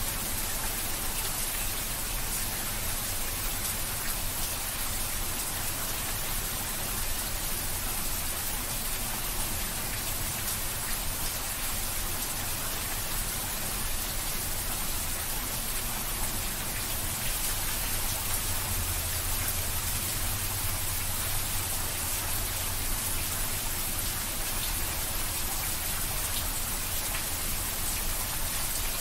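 Steady rain falling, an even hiss of many drops that keeps up without a break.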